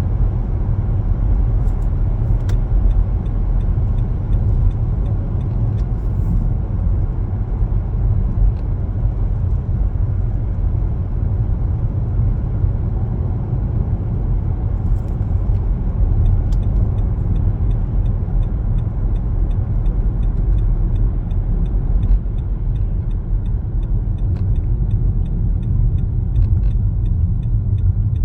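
Car driving, a steady low rumble of road and engine noise. About halfway through a regular light ticking starts, the turn signal clicking.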